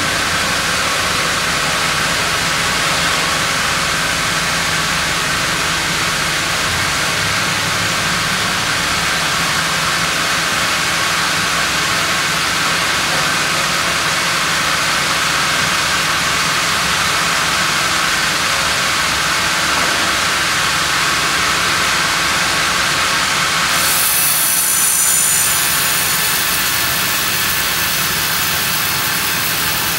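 Large sawmill band saw and its log carriage running, a steady loud mechanical noise. Near the end a loud hiss rises for a second or two, then drops back.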